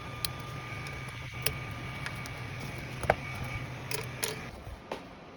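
A few sharp clicks and taps over a steady machine hum with a faint whine in it; the hum stops about four and a half seconds in.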